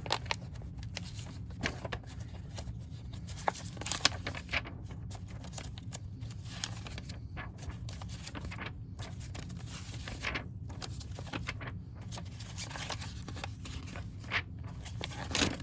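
Lego set's contents being handled: plastic parts bags crinkling and rustling with scattered scrapes and light clicks, over a steady low hum.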